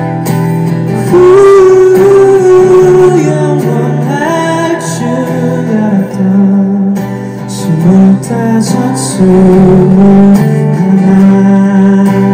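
A man singing a slow song into a microphone while strumming an acoustic guitar, holding long notes in the melody.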